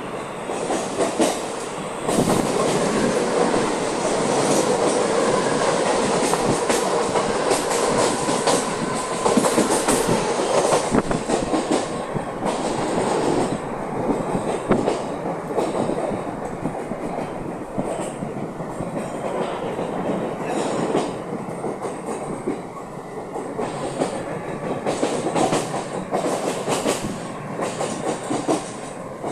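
Wheels and track of a moving ICF suburban local train, heard from inside the coach at a barred open window: a steady rumble with quick clickety-clack over rail joints. The noise is loudest for about the first ten seconds, then settles a little lower.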